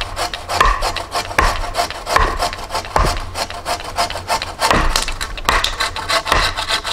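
Hand saw cutting through a dead log, in steady back-and-forth strokes a little under a second apart, with sharp wooden knocks mixed in.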